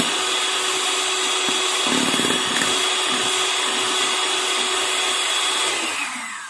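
Electric hand mixer running steadily at a high whine, its beaters whipping instant coffee, sugar and hot water into thick dalgona foam. Near the end it is switched off and the whine falls in pitch as it spins down.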